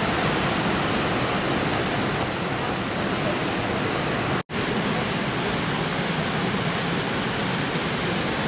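Steady rush of fast river water below a waterfall, an even hiss with no breaks in it. It cuts out for an instant about four and a half seconds in.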